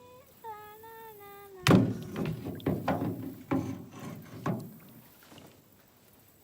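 A voice humming a few notes that drift downward, then a sharp knock and a string of further knocks and thuds in the canoe, the first knock the loudest.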